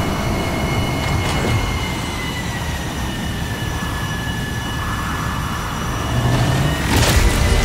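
Heavy, steady rush of wind from a giant fan blowing at full power, with a thin whine that slowly drops in pitch. A louder burst comes near the end.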